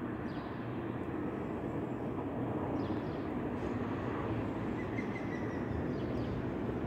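Steady outdoor town ambience: a constant low rumble of distant traffic, with a few faint high chirps.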